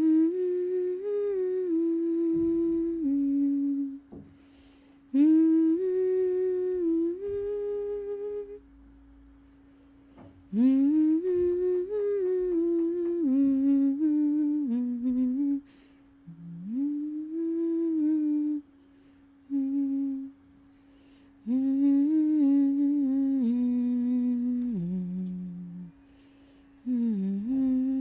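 A person humming a slow, gentle melody in phrases of a few seconds with short pauses between them, over a faint steady drone note that carries on through the pauses.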